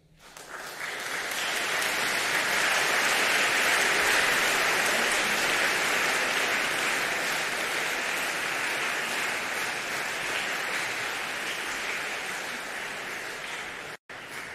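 Audience applauding, swelling up within the first two seconds, then slowly thinning before it is cut off abruptly near the end.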